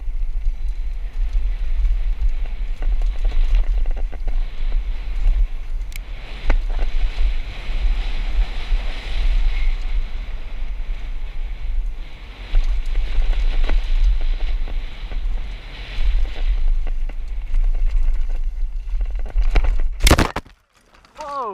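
Wind buffeting the microphone of a camera riding on a downhill mountain bike at speed, with knocks and rattles from the bike over the rough dirt track. A loud knock about twenty seconds in is followed by a brief drop in level.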